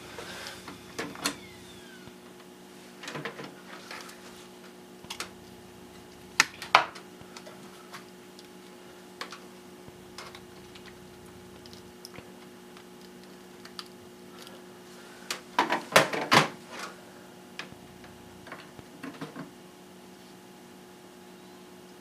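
Laptop IDE hard drives and a USB-to-IDE adapter handled by hand: scattered clicks and knocks as one drive is unplugged from the adapter and the other plugged in, loudest about six and a half seconds in and in a quick cluster around sixteen seconds in. A steady hum from the running computers lies underneath.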